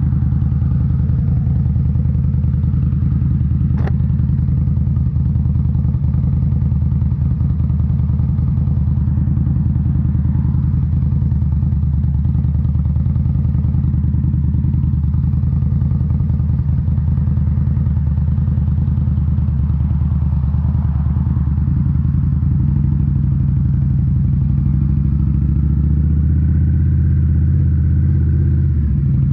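2018 Indian Scout Bobber's V-twin engine running steadily through Rinehart 3.5-inch slip-on mufflers, with a deep exhaust note. There is a sharp click about four seconds in, and the engine pitch shifts slightly near the end.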